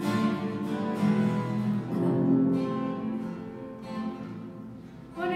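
Acoustic guitar strumming chords as accompaniment to a song, the music dying away over the last two seconds.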